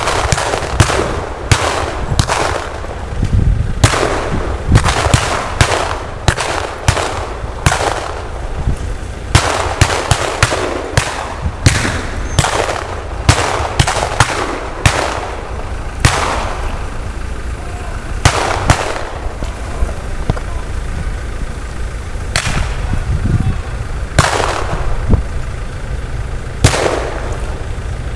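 Rifles firing blank rounds in a reenacted battle: irregular shots, several a second through the first half, thinning to single shots a second or more apart later, over a steady low rumble.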